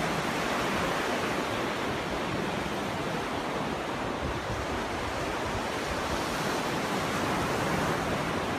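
Ocean surf: a steady, dense wash of breaking waves, with no single crash standing out.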